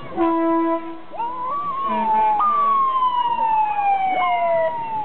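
Fire truck air horn blast, then a siren wail that climbs and wavers and then winds slowly down in pitch. A small white dog howls along with the siren tones.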